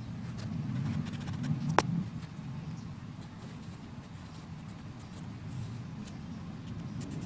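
Pencil scratching on lined notebook paper as lines are sketched, with one sharp click about two seconds in, over a steady low background rumble.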